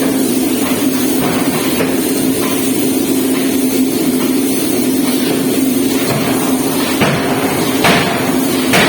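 Hydraulic forging press running with a steady hum, with a few sharp knocks about a second apart near the end.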